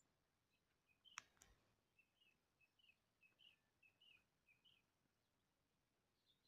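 Near silence with faint bird chirps: a small bird repeats short calls about two to three times a second for a few seconds. Two soft clicks come a little over a second in.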